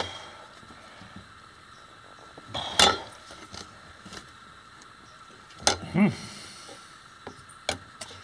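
A thin metal strap being bent by hand around a tube, giving a handful of sharp metallic clanks and clinks, a couple of seconds apart, with a brief ring after each.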